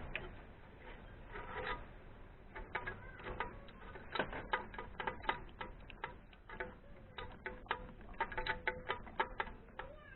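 Ratchet wrench being worked, clicking in quick irregular runs with a faint metallic ring.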